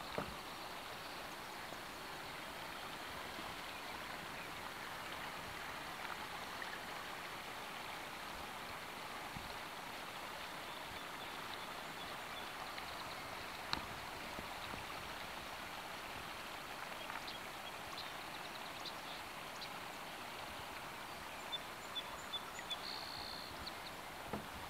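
Steady hiss of moving river water, with a few faint clicks.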